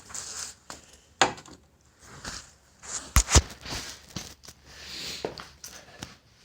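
Hands-on work noises while reaching a heater hose clamp: rustling and scraping with a sharp click about a second in and two loud knocks close together about three seconds in.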